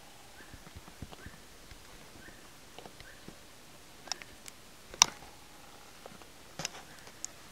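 Quiet woodland background with faint short chirps repeating about once a second, and a few sharp clicks, the loudest about five seconds in.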